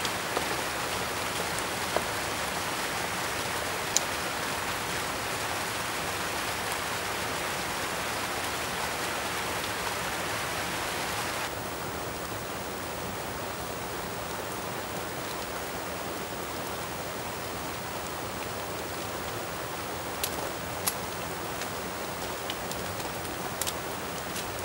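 Steady rain falling on the forest, an even hiss that drops noticeably quieter about halfway through. A few sharp ticks come near the end.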